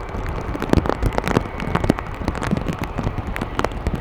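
Rain falling, with many irregular drops striking close to the microphone over a steady low rumble.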